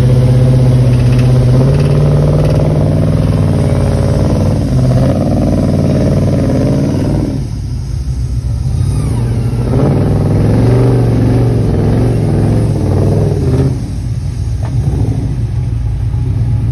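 Rock-crawler buggy's engine revved hard and held high for about seven seconds, easing off for a couple of seconds, then revved again for about four seconds before dropping back, its tyres spinning against the rock as it tries to climb out of a crack.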